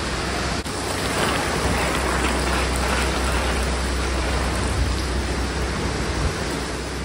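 Heavy rain pouring down onto a concrete yard, a steady, even hiss of falling water.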